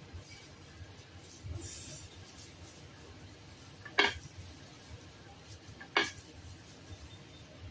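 Two sharp clinks on a hard serving tray, about two seconds apart, as cut sushi rolls are set out on it by a gloved hand. A faint rustle comes before them.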